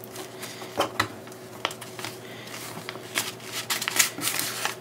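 A paper leaflet and a fabric carrying bag rustling as they are handled, with a string of short scrapes and light taps that come thickest about three seconds in.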